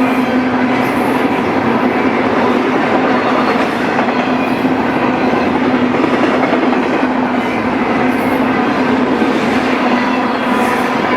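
Freight train rolling past: steady noise of steel wheels on the rails with a steady hum underneath.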